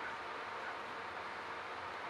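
Steady rushing noise inside a moving Metra commuter train car.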